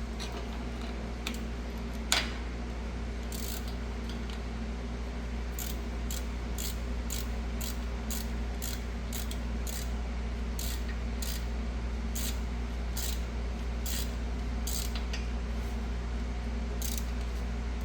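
Hand ratchet with a deep socket clicking as it is worked back and forth to tighten a rear brake caliper bolt, about two clicks a second from about three seconds in, over a steady low hum.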